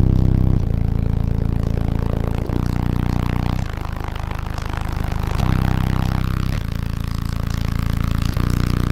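Deep sustained bass notes of a song, stepping to a new pitch every second or two, played very loud through a car audio system of nine Sundown Audio NSV4 15-inch subwoofers driven by nine SCV7500 amplifiers, with a buzzing rattle running through them.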